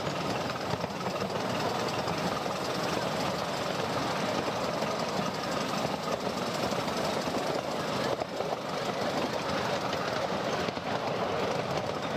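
Steam-hauled miniature railway train running along the track, heard from the riding cars: a steady rattle and clatter of wheels on the rails.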